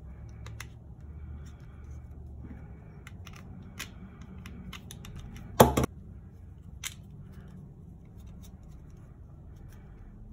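Hard plastic clicking and rattling as a GoPro camera is handled and fitted into a black plastic frame housing with its mounting buckle. There is one loud double snap a little over halfway through and a smaller click about a second later.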